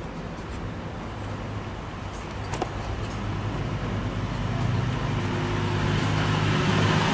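A motor vehicle running, its sound growing steadily louder, with a single sharp click about two and a half seconds in.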